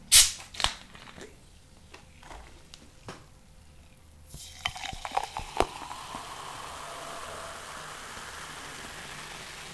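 Pepsi cola being poured from a plastic bottle into a glass, starting about four and a half seconds in: a steady fizzing splash with a pouring tone that rises in pitch as the glass fills. A short sharp burst right at the start and a few light clicks come before the pour.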